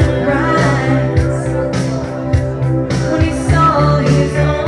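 A woman singing karaoke into a microphone over a rock backing track with a steady beat.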